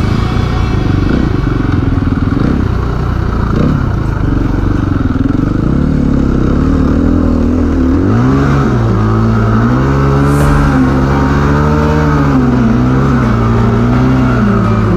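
KTM EXC-F 350 enduro motorcycle's single-cylinder four-stroke engine running under load as the bike is ridden, its pitch climbing and dropping over and over with the throttle in the second half.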